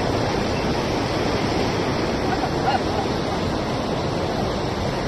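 Steady rushing of a swollen, fast-flowing flooded river.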